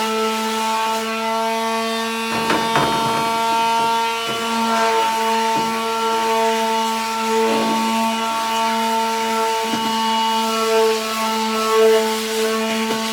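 Electric quarter-sheet palm sander running with a steady motor whine, its sandpaper rasping against the edges of a wooden skateboard deck in irregular passes as the sharp edges are rounded over.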